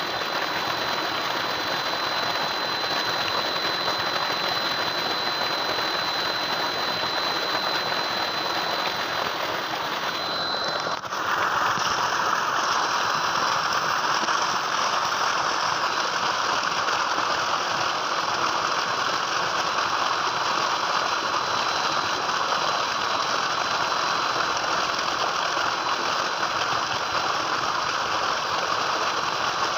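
Tubewell water gushing steadily from the outlet pipe into a concrete tank, a continuous rushing, with a thin high whine. About eleven seconds in, the whine stops and the rush turns suddenly louder and brighter.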